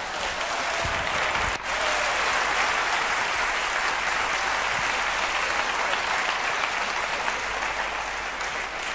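A large audience applauding: steady, dense clapping that eases off slightly near the end.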